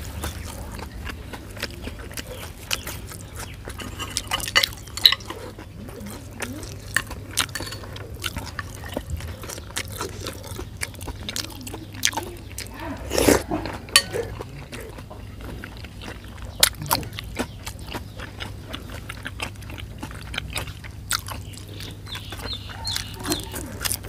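A person eating raw pork blood soup with raw vegetables: wet chewing, slurping and lip-smacking in irregular smacks and clicks, with a louder cluster about thirteen seconds in.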